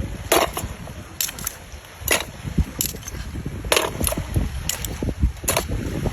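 A series of irregular sharp cracks and clicks, about two a second, over a low rumbling noise.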